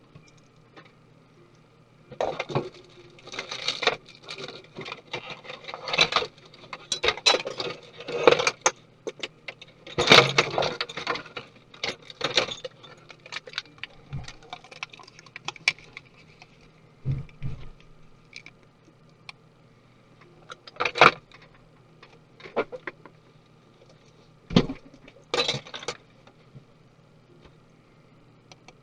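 Tools and small metal parts clinking, clicking and rattling as a laptop is taken apart by hand. The sounds come in irregular clusters, busiest in the first half, then a few single sharper knocks later on.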